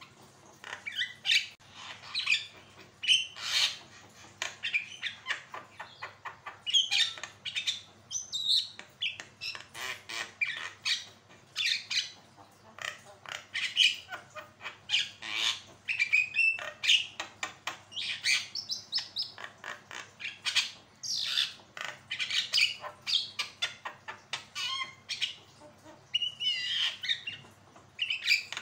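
Javan myna (jalak kebo) in full song: a rapid, dense run of short harsh squawks and chattering notes mixed with some gliding whistles, with only brief pauses.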